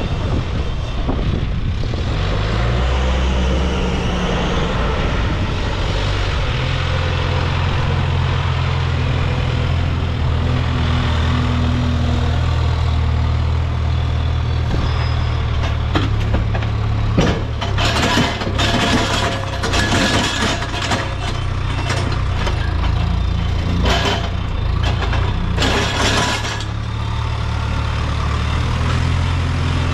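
Case backhoe loader's diesel engine running under load, its pitch shifting as it works. From about halfway through to near the end, a run of clanks and knocks.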